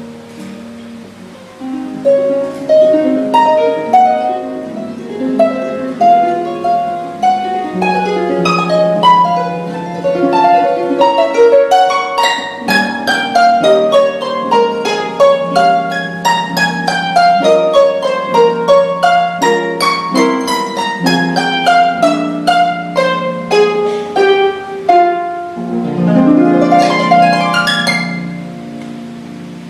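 Lyon & Healy Style 85 concert grand pedal harp played solo: quick plucked arpeggios and runs, with a series of fast descending runs in the middle. Near the end a sweeping upward glissando rises, and the notes then ring away.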